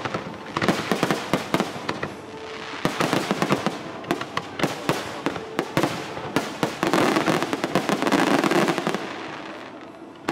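Fireworks display: a dense run of sharp crackling and popping from many bursting shells, heaviest about two-thirds of the way through, then thinning out near the end.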